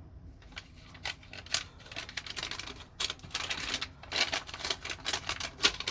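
Watch straps being handled close to the microphone: a run of quick small clicks and rattles. They are sparse at first, thicken after about two seconds, and stop briefly around the middle.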